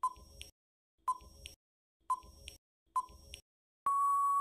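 Quiz countdown-timer sound effect: a short electronic tick-beep once a second, four times, then a long steady beep near the end as time runs out.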